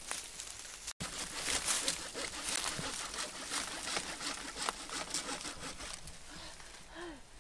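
A large knife chopping at the base of bamboo, with repeated knocks among the dry crackling and rustling of dead leaves and stems.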